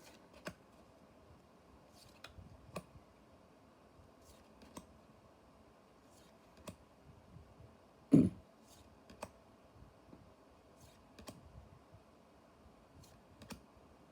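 Trading cards from a freshly opened booster pack being handled and flipped through on a table: scattered soft clicks and taps, with one louder low thump a little past halfway.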